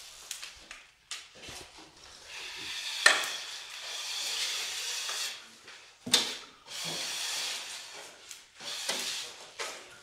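Scraping swishes of a pole-mounted drywall finishing tool drawn through joint compound along the wall, in several strokes, the longest lasting about three seconds. Two sharp knocks come about three and six seconds in.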